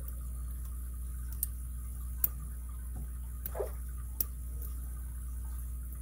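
Lock pick and tension wrench working the pins of a Master Lock M15 padlock: a few sharp metallic clicks with a short scrape between them.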